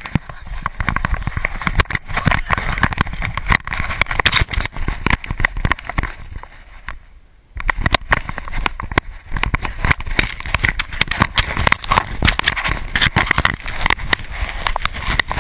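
Action camera riding on a running dog: a rapid, irregular clatter of knocks and scuffs as the housing jostles and paws strike the snow. It eases off about six seconds in and picks up again about a second and a half later.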